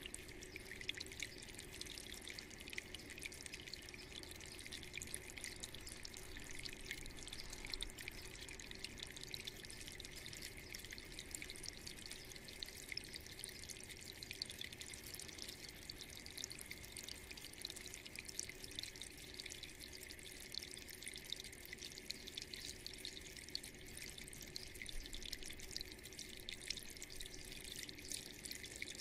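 Water trickling down the slate strips of a Kenroy Home Meander floor fountain and dripping onto the river stones in its basin: a steady splashing made of many small drips.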